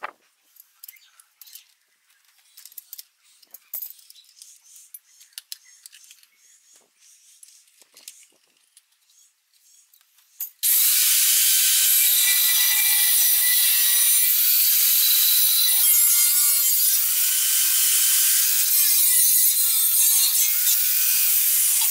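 Faint clicks and knocks of tools being handled, then about halfway through an angle grinder's cutting disc starts cutting the steel of an LPG gas cylinder. The cut is a loud, steady, high-pitched screech with ringing tones, holding to the end.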